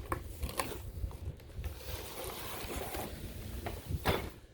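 A cardboard box and its packaging being handled and pulled open: steady rustling and scraping with a few sharp knocks, the loudest about four seconds in.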